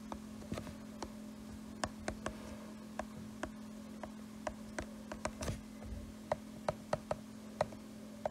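Stylus tip tapping and clicking on a tablet's glass screen while handwriting: a scatter of sharp, irregular ticks, with one longer rub past the middle, over a faint steady hum.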